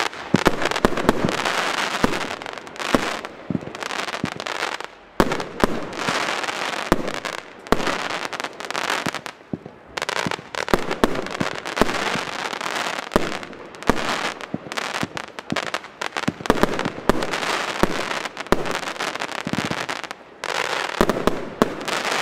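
FUNKE Dahliencracker Z-2 fireworks battery (cake) firing a long run of shots that burst overhead into dense crackling stars, coming in volleys with a few brief lulls.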